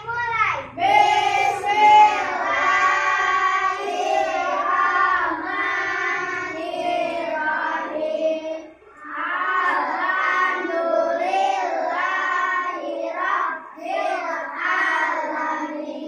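Children singing a song, breaking off briefly about nine seconds in.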